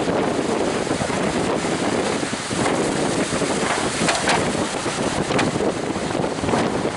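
Strong wind buffeting the microphone over the steady rush of surf breaking in a storm, with a few sharper surges of hiss near the middle.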